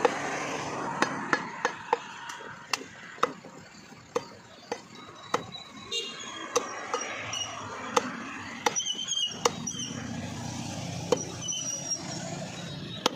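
A heavy curved butcher's knife chopping goat meat and bone on a wooden stump block. There are about twenty sharp chops at an uneven pace, roughly one every half second to second.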